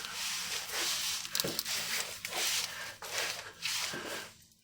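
Cloth rag rubbing over the engine's oil filter mounting face, a series of wiping swishes that stop shortly before the end, cleaning off old oil before the new filter goes on.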